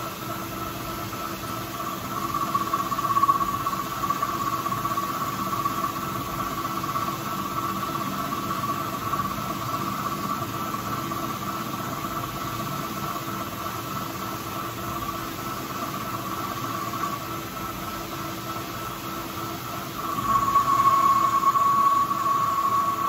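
Old manual metal lathe running while its cutting tool faces the end of a stake driver blank, a steady whine over the machine's hum. The whine grows louder for the last few seconds.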